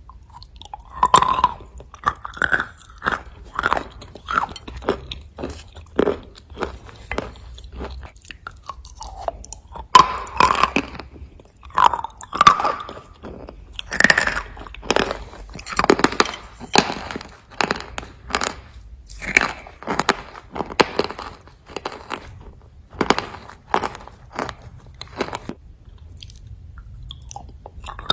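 Close-up chewing of dry white clay pieces: repeated sharp crunches in irregular clusters, with a quieter pause near the end.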